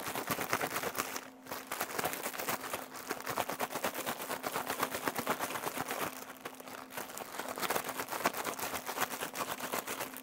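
A zip-top plastic storage bag crinkling and rustling as raw chicken wings are shaken and tossed inside it with dry rub and baking powder, with a brief pause about a second in.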